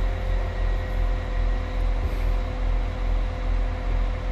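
Northern Class 195 diesel multiple unit standing at the platform with its underfloor diesel engines idling: a steady deep hum with a slow, regular throb and a steady higher tone over it.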